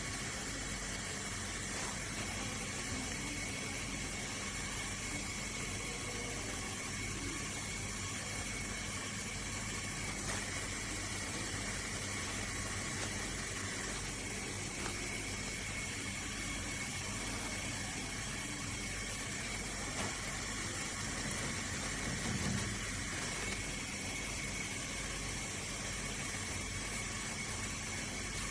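Steady hiss with a faint constant hum and no distinct events: background or room noise.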